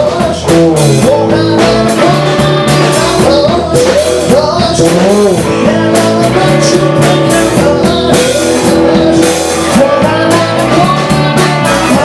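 Loud rock music with singing, electric guitar and drums.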